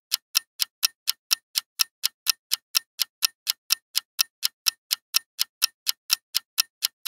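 Quiz countdown timer sound effect: a steady clock-like ticking, about four ticks a second, running while the answer time counts down.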